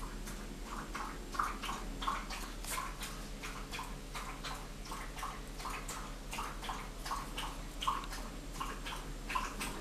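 Persian cat licking its own fur and paw: a steady run of short, wet licks, about two or three a second.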